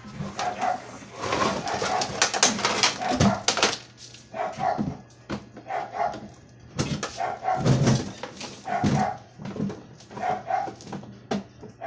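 A dog barking repeatedly, often in quick pairs, about once a second, over clattering of hard plastic washer parts being handled.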